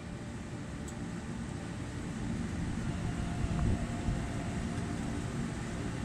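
Steady low rumble with a hiss above it, slowly growing louder, with a couple of faint knocks about three and a half to four seconds in.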